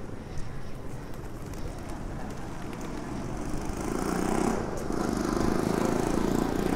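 Street traffic noise, a steady rumble of passing vehicles. It grows louder over the second half as a vehicle comes closer.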